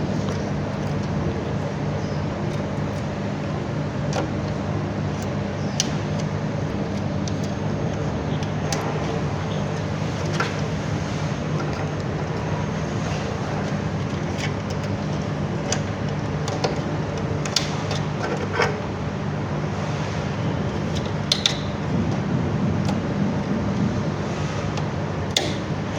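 Steady low machine hum, like a fan or workshop equipment, with scattered light clicks and taps as battery-to-BMS wiring and connectors are handled.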